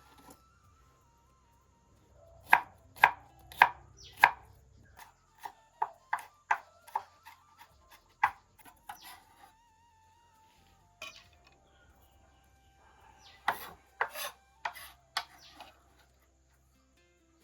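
Knife chopping food on a cutting board: runs of sharp strokes, under two a second, with pauses between the runs.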